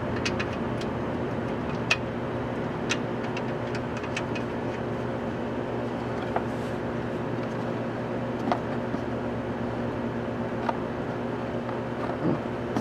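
A steady mechanical hum holding several fixed pitches, with a few light, sharp clicks scattered through it.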